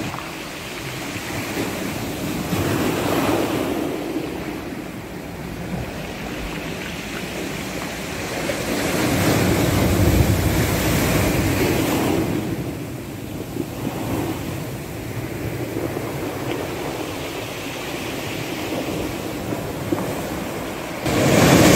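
Sea surf and wind: a steady rushing noise that swells and eases several times, loudest near the middle and again near the end.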